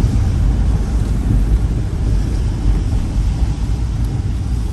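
Steady low rumble of a vehicle driving on city streets.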